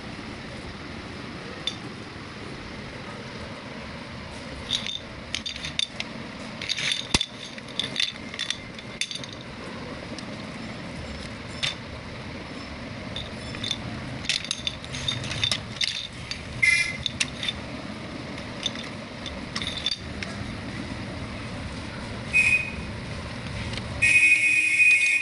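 Scattered light plastic clicks and clacks from a plastic domino train toy and loose plastic dominoes being handled, over a steady hiss. Near the end the toy train gives a short electronic beep, then a louder, longer electronic tooting tone.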